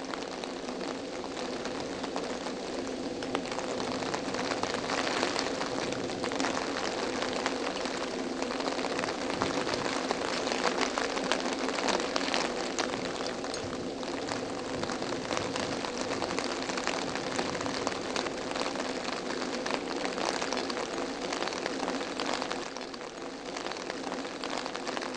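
Steady rain falling, a dense patter of many small drop impacts, with a low steady hum beneath it.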